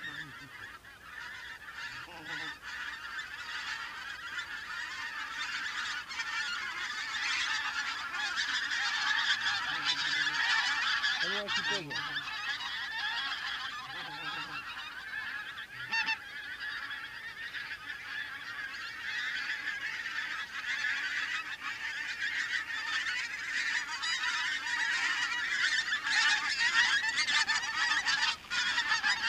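A large flock of wild geese calling in flight, a dense chorus of honks that grows steadily louder as the flock comes in overhead.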